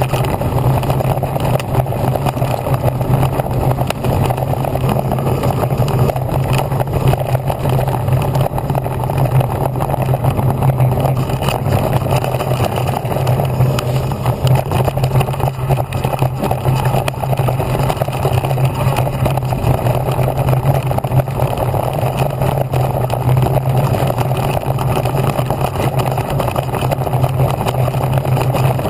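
Haibike XDURO AllMtn 2.0 electric mountain bike riding fast over a dirt forest trail: a steady, unbroken rumble of wind on the microphone and tyres and frame rattling over the ground, with a constant low hum underneath.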